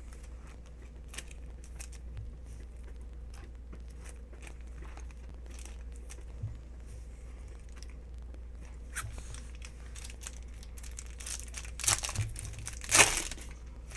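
Foil trading-card pack being torn open and crinkled, loudest just before the end, after a spell of light rustling and clicking from cards being handled.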